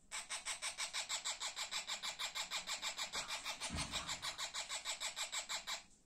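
Parrot chick giving a rapid rasping begging call, about seven pulses a second, while being fed beak-to-beak by an adult parrot. It cuts off near the end.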